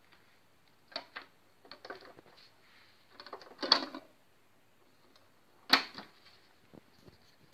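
Plastic clicks and clunks from the top-loading CD compartment of a Sharp QT-CD7 portable boombox as a CD-R is handled and pressed onto the spindle, the loudest clatter a little past the middle, then a single sharp click near the end as the CD lid shuts.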